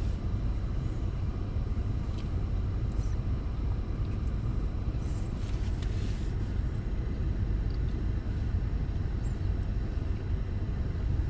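Steady low rumble of an idling car heard from inside the cabin, with a few faint rustles.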